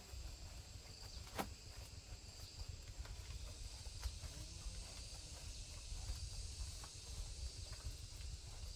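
Faint outdoor background: a steady low rumble with a steady high insect drone over it, and two sharp clicks.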